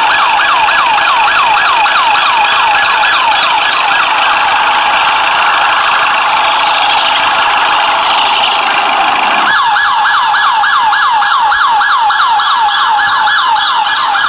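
Toy police jeep's electronic siren: a fast yelping wail of about four sweeps a second, fading for a few seconds midway and coming back strongly near the end, over a steady hiss.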